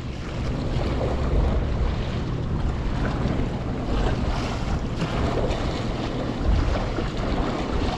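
Wind buffeting the microphone, with sea waves washing against the rocks of a stone jetty, a steady noisy wash throughout.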